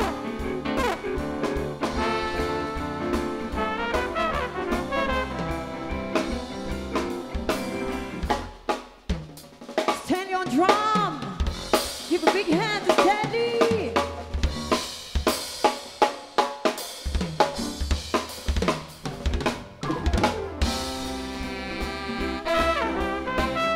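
Live jazz show band playing with horns and a rhythm section. About eight seconds in, the band drops back and the drum kit takes over with sharp snare, rimshot and bass-drum hits. The full band comes back in near the end.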